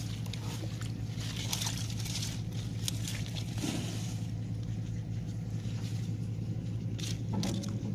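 A steady low motor hum runs throughout. Over it come intermittent rustling and scraping as a wire-mesh fish trap is pushed in among water-hyacinth leaves at the water's edge, with a short burst of handling noise near the end.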